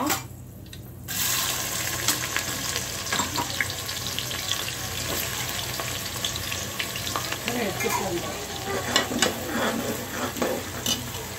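Sliced onions sizzling as they fry in hot oil and ghee in an aluminium pressure cooker, with a steel spatula scraping and clicking against the pot as they are stirred. The loud frying hiss sets in about a second in.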